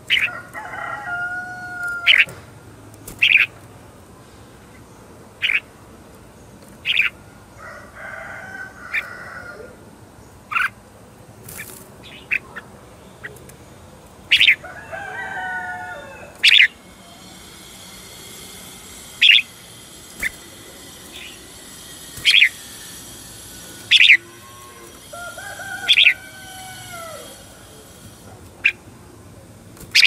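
Red-whiskered bulbul calling: sharp, very short 'chéc' notes every second or two, with a few short warbled song phrases between them. A steady high buzz sits behind the second half.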